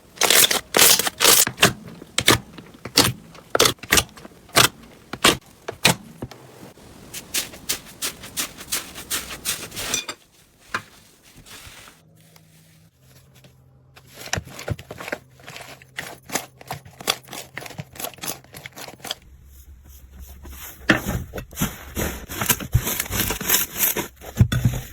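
Slime being squeezed, poked and pressed by hand, giving rapid runs of sharp crackling clicks and air-bubble pops. The clicks thin out into a quieter stretch about midway, then come thick again near the end.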